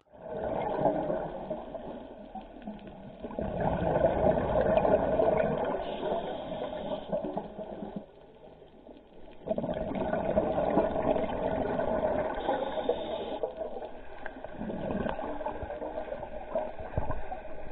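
Underwater water noise picked up by a diver's camera: gurgling and rushing in long surges, with a lull of about a second and a half around eight seconds in.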